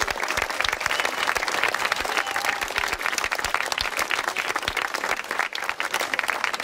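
A crowd clapping and applauding, a dense steady patter of many hands.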